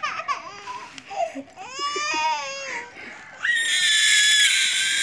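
Small children's high-pitched voices: a few short cries, a wavering call that rises and falls about two seconds in, then a long, steady squeal from about three and a half seconds on.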